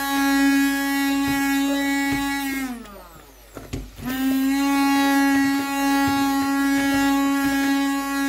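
Hand-held immersion blender running in a deep steel pot of callaloo, puréeing it smooth: a steady motor whine that is switched off about two and a half seconds in and winds down, then starts up again about a second later and runs on. A light knock falls in the gap.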